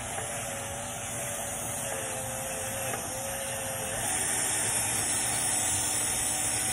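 Cordless drill spinning a foam buffing pad against a plastic headlight lens coated with polishing compound, its motor giving a steady whine. About four seconds in the whine shifts higher and gets louder.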